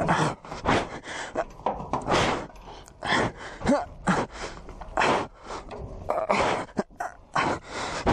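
A person breathing hard and grunting with effort while climbing a steel shipping container, with irregular knocks and scrapes of hands and feet against the metal.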